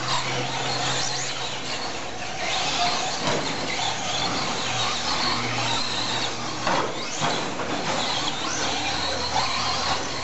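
A pack of Traxxas Slash 2WD short-course RC trucks racing on dirt: the high-pitched whine of their electric motors swells and falls as they pass, over a steady hiss from the tyres and the track.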